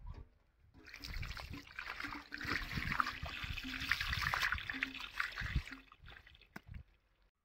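Water poured from a metal pot, splashing and trickling over a plucked whole turkey and a stone slab as a hand rinses the carcass. The pouring starts about a second in and stops near six seconds.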